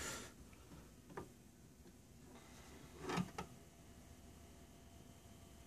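Faint clicks and light knocks from handling a record player's tonearm over the record: one click at the start, another about a second in, and a close pair a little after three seconds, over a faint steady hum.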